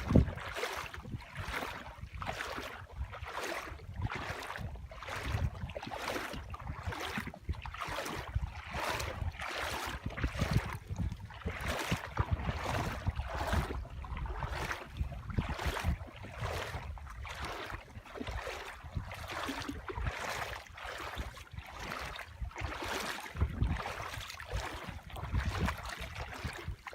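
Kayak paddle strokes splashing in the water in a steady rhythm, about one and a half splashes a second, with wind rumbling on the microphone.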